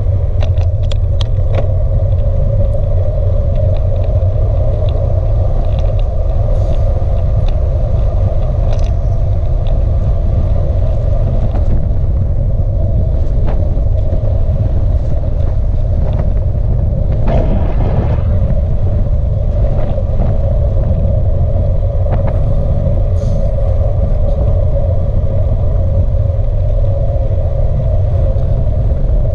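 Steady wind rush over the bike-mounted camera's microphone and tyre rumble on tarmac from a bicycle moving at speed, with scattered small clicks and knocks from the road and bike, and a brief louder rush a little past halfway.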